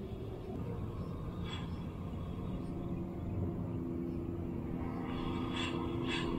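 Wind noise on the camera microphone: a steady low rumble, with a faint steady hum growing from about four seconds in and a few light clicks near the end.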